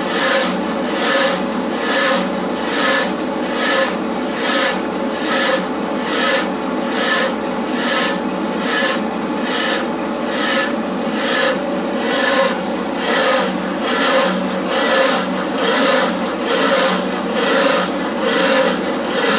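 Titan 10-inch tree planer bit, driven by a Lowe 2175 hydraulic auger drive, grinding a tree stump into chips. A loud rasping cut that swells about twice a second, over the steady drone of the Case SV280 skid steer's engine and hydraulics.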